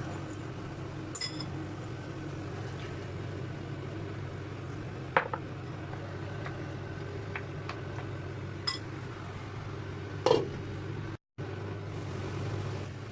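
A cooking utensil clinking lightly against a pan a few times, over a steady low hum.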